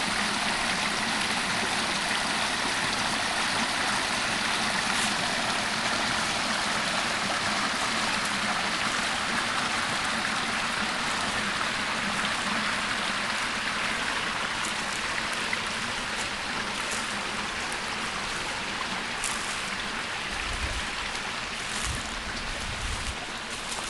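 Stream water rushing steadily, an even wash of water noise that eases a little toward the end. A few short low rumbles come in near the end.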